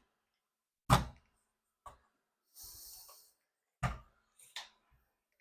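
Plastic knocks and clicks of a portable radio's battery cover being fitted: a sharp knock about a second in, another near four seconds, small clicks, and a short scraping slide between them.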